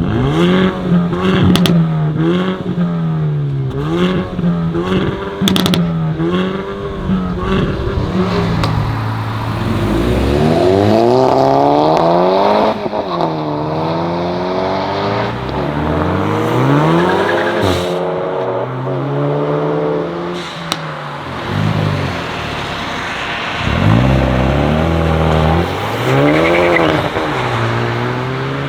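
Hyundai i30N's 2.0-litre turbocharged four-cylinder revved hard again and again through its exhaust, quick blips at first and then longer climbs in pitch, with a few sharp exhaust pops.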